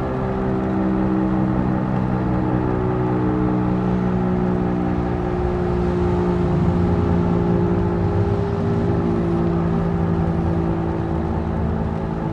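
Federal Signal Model 5 mechanical outdoor warning siren sounding its attack signal: a loud, steady, low wailing tone with several overtones, its pitch wavering slightly up and down.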